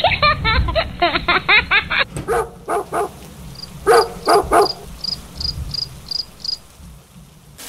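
A dog barking in quick runs of barks, then crickets chirping about three times a second as the barking stops, over a low steady rumble.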